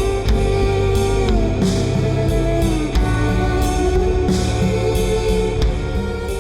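Background rock music with guitar and drums playing at a steady beat, fading out near the end.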